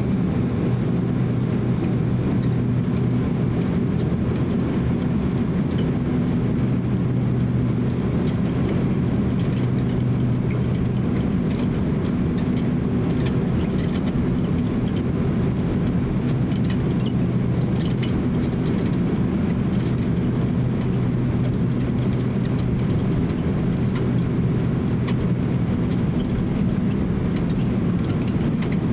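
Cabin noise of a Boeing 767-300 taxiing: the engines' steady low hum at taxi power, with scattered light clicks and rattles from the cabin.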